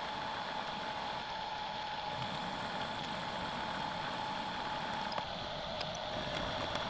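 Milling machine spindle running steadily while a counterbore mill cuts counterbores for bolt heads into a steel plate, a steady whine over the cutting noise.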